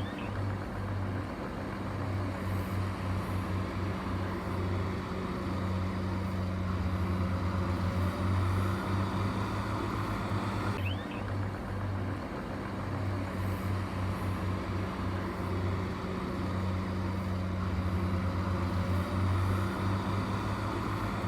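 Heavy construction machine's engine running steadily with a low hum, with an abrupt break about eleven seconds in.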